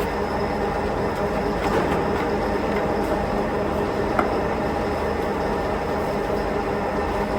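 Steady running of heavy factory machinery, a continuous mechanical noise with a faint steady hum in it, and one sharp click about four seconds in.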